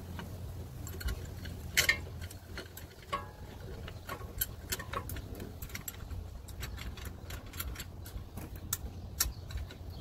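Irregular small metallic clicks and ticks from a hand-turned brake caliper piston compressor as it is worked against the front brake caliper to push the piston back in, with a louder clatter about two seconds in, over a steady low rumble.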